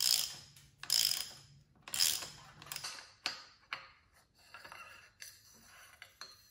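Ratchet wrench on a cassette lock ring tool unscrewing the Charger 2.1 damper from a RockShox Pike Ultimate fork: three ratcheting strokes about a second apart, then scattered lighter metal clicks and taps.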